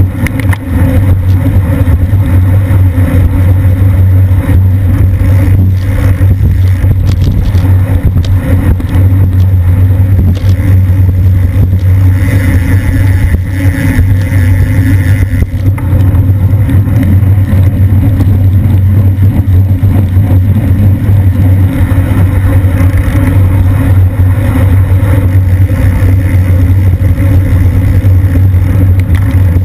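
Heavy, steady wind rumble on a bike-mounted action camera's microphone while riding in a road-race pack at about 20–25 mph. From about 12 to 15 seconds in, the rear hub's freewheel buzzes while the rider coasts without pedalling.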